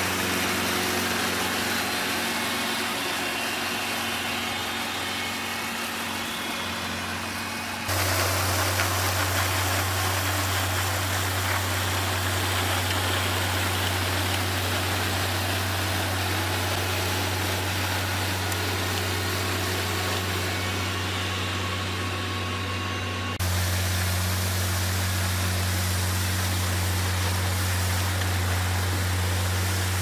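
John Deere 5100R tractor's diesel engine running at a steady speed, driving hydraulic rotary brushes that scrub weeds from paving with a steady hiss. The sound changes abruptly twice, about 8 and 23 seconds in.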